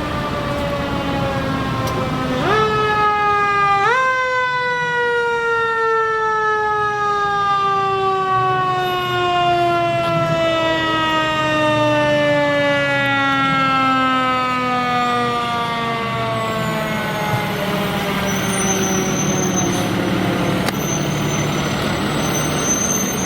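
Fire truck siren wailing with a slowly falling pitch. It is pushed quickly back up twice, about two and a half and four seconds in, then winds down in one long fall and fades out about two-thirds of the way through. A low truck-engine and traffic rumble runs underneath.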